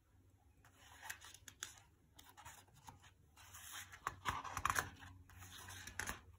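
Paper page of a picture book being handled and turned by hand: faint scratching and rustling with light clicks, getting louder over the last couple of seconds as the page lifts.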